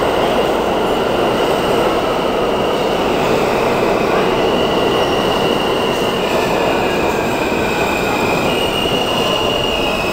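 New York City subway E train pulling into the platform and braking: a steady loud rumble of the passing cars, with high-pitched wheel and brake squeals coming in about halfway through and changing pitch a few times as it slows.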